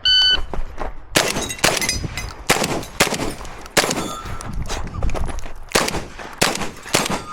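Shot timer beep to start the stage, then a string of shotgun shots fired at an irregular pace, about nine in all, with short pauses between groups.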